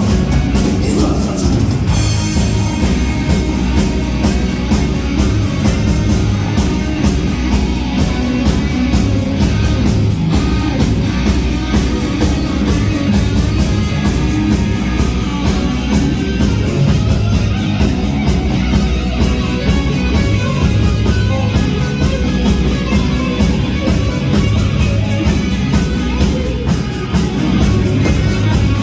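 A hard rock band playing live and loud, with a steady, driving drum beat under the guitars and bass.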